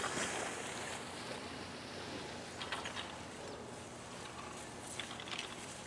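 Steady outdoor hiss of a ski slope, with a few short clicks about two and a half seconds in and again near the end.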